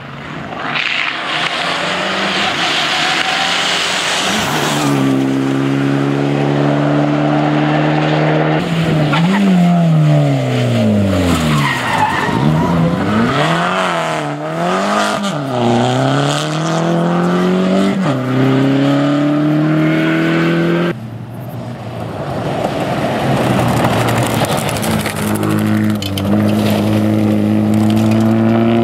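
Rally cars driven flat out on a special stage, one after another: engine notes held high, then swinging up and down repeatedly with throttle lifts and gear changes, with tyre and gravel noise as a car slides through a corner. The sound breaks off abruptly about two-thirds of the way through, and another car's engine note rises near the end.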